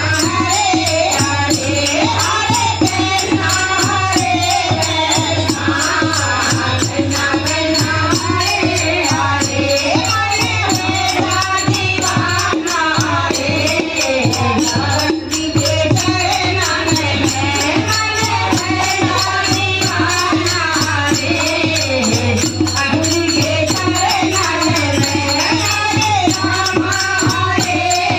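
Hindi devotional kirtan bhajan sung by a group, over a fast, steady rhythm of hand percussion and rattles.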